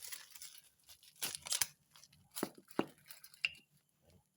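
Packaging rustling and tearing as a set of new brake pads is unwrapped, followed by three sharp clicks or knocks in the second half as the pads are handled.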